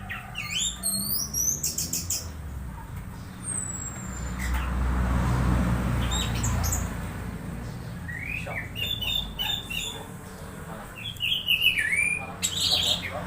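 Orange-headed thrush giving odd squeaky calls: quick chirps and sweeping squeaks in short clusters, near the start and again several times in the second half. A low rumble swells up in the middle.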